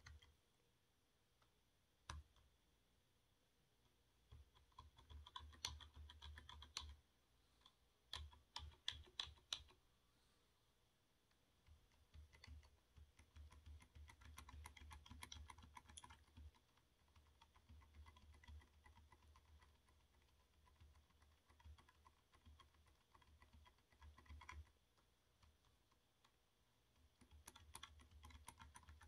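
Faint clicking of a USB computer keyboard's keys being typed in quick runs of taps, broken by a couple of short pauses.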